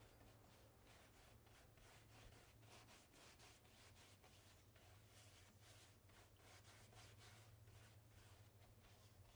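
Faint, irregular strokes of a paintbrush brushing thinned chalk paint into upholstery fabric, barely above near silence, over a low steady hum.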